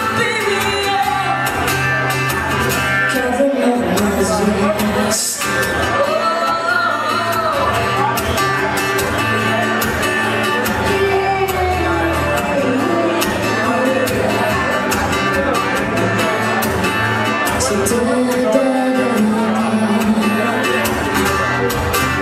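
A woman singing a song solo while playing an acoustic guitar, live on stage.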